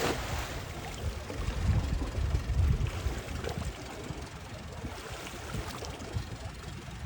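Uneven low rumble of wind buffeting the microphone, swelling in gusts around two seconds in.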